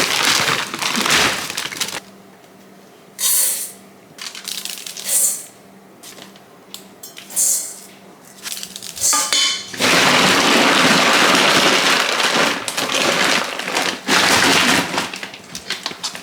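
Dry, uncooked rice poured by the cupful into a pot, a grainy rattling hiss. Several separate pours come about two seconds apart, with longer, steadier pours at the start and again near the end.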